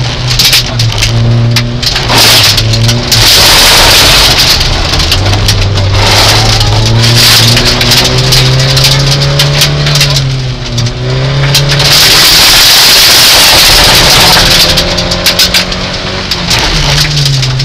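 Rally car engine at full throttle, heard from inside the cabin, its pitch climbing and dropping sharply again and again as it shifts gears. Under it there is a loud hiss of tyres on gravel, with stones rattling against the car's underside.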